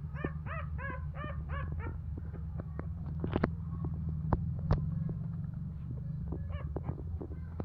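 Nursing puppies squealing in runs of short, high, squeaky calls, about three or four a second, at the start and again near the end, with scattered clicks in between. A steady low hum runs underneath.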